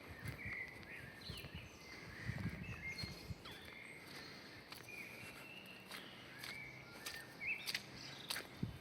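Footsteps on a park path with small birds chirping and calling repeatedly in short, high notes around them.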